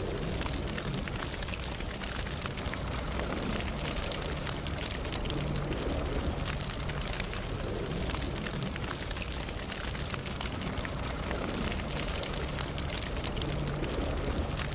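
Campfire burning, with a steady low rumble of flames under many small, quick crackles and pops.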